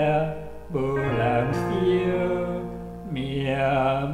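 A Taiwanese Hokkien ballad sung over backing instruments. The voice holds long, wavering notes in two phrases, the second starting about three seconds in.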